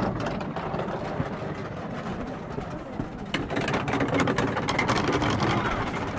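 Metal prayer wheels turning on their spindles: a continuous rumbling rattle with many small clicks.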